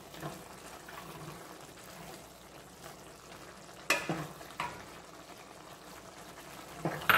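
Picadillo simmering in red sauce in a stainless steel pan while it is stirred with a spatula. About four seconds in come a couple of sharp knocks as the peas are added.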